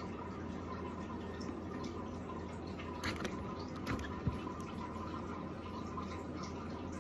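Steady trickle and hum of running water from an aquarium filter, with a few soft knocks about three to four seconds in as the African bullfrog shifts in its tub.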